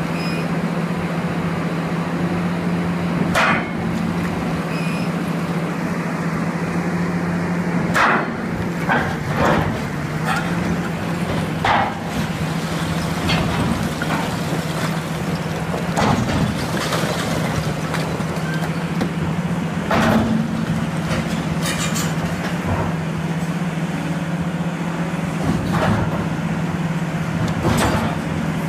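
Large hydraulic rock breaker on an excavator hammering into solid quarry rock, over the steady low drone of the excavator's engine. Sharp cracks and knocks stand out irregularly every few seconds.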